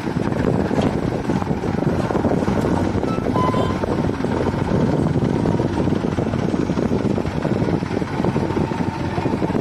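Diesel engines of farm tractors and a JCB 3DX backhoe loader running steadily at close range, a dense, fluttering drone.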